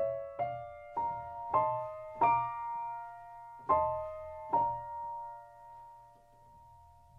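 Slow, gentle solo piano, notes and chords struck one after another and left to ring; the last chord, about four and a half seconds in, fades away.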